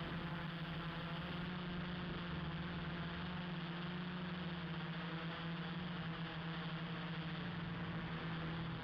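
A steady, unchanging low hum with an even hiss above it.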